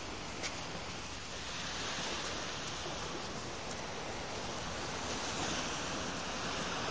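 Steady beach ambience: an even hiss of distant surf and breeze, with no distinct events.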